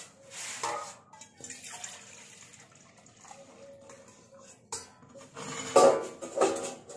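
Liquid poured from a steel pot, held with tongs, into a steel lota, with steel vessels clanking louder near the end.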